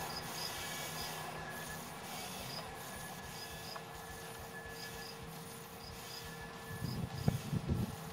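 Faint steady whine of a small VEXplorer robot's motors as its arm scrubs a truck tire with a soapy sponge, with small regular high chirps over it. Louder irregular rubbing noise comes in about seven seconds in.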